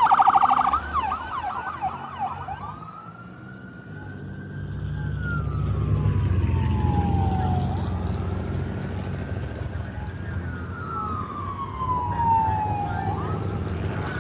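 Emergency vehicle's electronic siren on a fast yelp for about the first two and a half seconds, then switching to a slow wail that rises and falls about every five seconds. Under it a low vehicle rumble swells after a few seconds.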